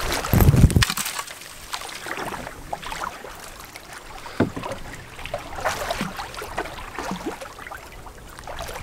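Canoe paddling: the paddle dipping and splashing through the water in strokes, with drips and a few light knocks. A loud low rumble about half a second in stands out above the rest.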